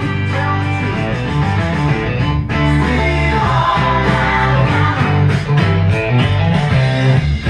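Rock music with guitar playing loud through newly installed in-ceiling speakers, the volume just turned up from a phone app.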